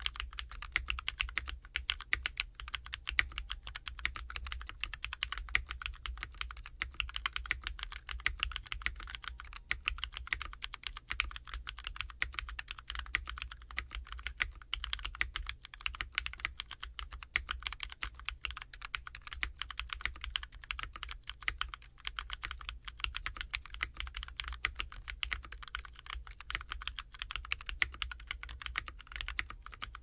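Continuous fast typing on a Cloudline TKL mechanical keyboard with broken-in Cherry Vintage Brown switches, an aluminium plate and GMK Blot keycaps: a dense, even stream of key clicks and clacks, over a faint steady low hum.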